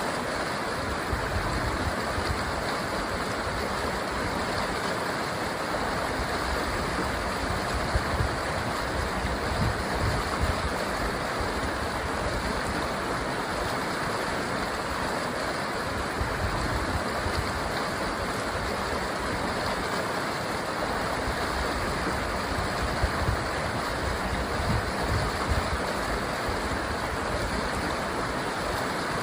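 River water flowing steadily, a continuous rushing noise with low gusts of rumble throughout.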